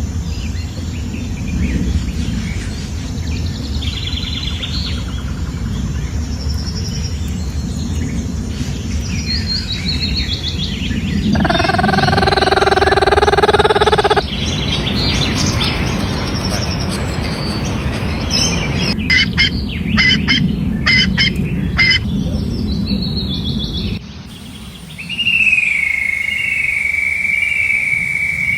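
Birds chirping and calling over a steady low background noise, in several short segments that change abruptly. The loudest is a held call about eleven seconds in, lasting about three seconds. Near the end comes a steady high whistle that rises at the start of each note.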